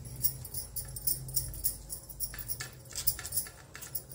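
A steel spoon scraping and tapping on crisp grilled toast while spreading chutney: a run of short, irregular scratchy clicks over a low steady hum.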